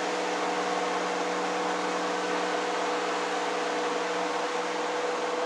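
A 2002 Custom Weld Viper 2 jet boat's 4.3-litre Vortec V6 running at a steady speed, a steady hum under an even rushing hiss.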